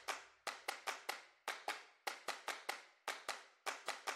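Faint, dry percussive clicks in a rhythmic pattern, up to about five a second with gaps: a sparse percussion-only passage of the background music.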